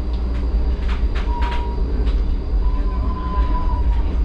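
HermeLijn low-floor tram running along street track: a steady low rumble with a few sharp clicks from the wheels over the rails, and a thin high wheel squeal twice, the second one longer.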